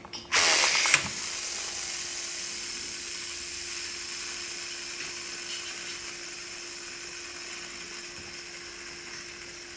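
Shimano Curado baitcasting reel's spool spinning freely on ceramic bearings: a louder burst for under a second as it starts, then a steady whir that slowly fades as the spool coasts down. The loose line end slaps the thumb bar every revolution, and ceramic bearings run louder than stainless ones.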